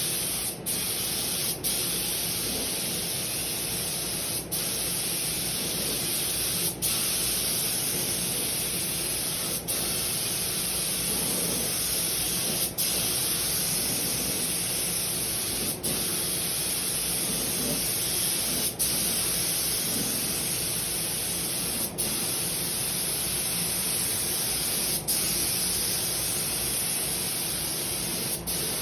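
Air spray gun spraying paint, a steady hiss that breaks off for an instant every few seconds, as between passes.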